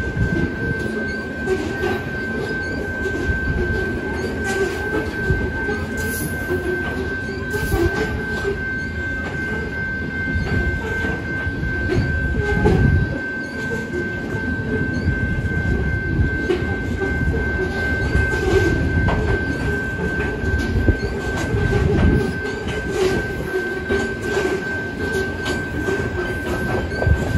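Loaded covered hopper cars of a grain unit train rolling past at a grade crossing: a steady heavy rumble of wheels on rail with frequent irregular clanks and clatter. A single steady high tone sits above it without a break.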